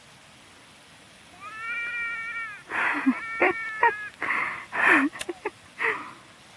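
A young child's high-pitched vocalizing: one long sing-song call about a second and a half in, then a string of short breathy squeals and cries.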